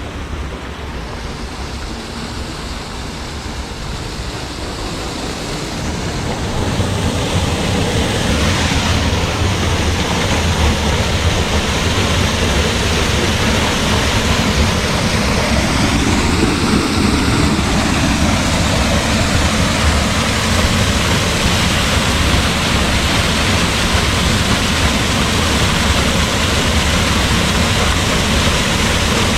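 Waterfall: a steady rush of falling water that grows louder over a few seconds and then holds steady.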